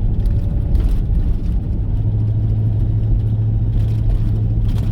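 Car driving at low speed, heard from inside the cabin: a steady low engine and road rumble, with a steady low hum coming in about two seconds in.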